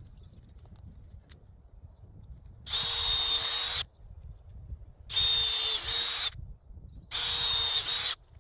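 Power drill running in three bursts of about a second each, with short pauses between, while the greenhouse frame is being assembled.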